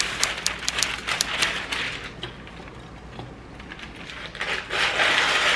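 Kitchen paper from a Reynolds Kitchens box being pulled off the roll, crinkling with quick crackling clicks, then a longer, louder rasping rush near the end as the sheet is torn across the box's serrated cutting edge.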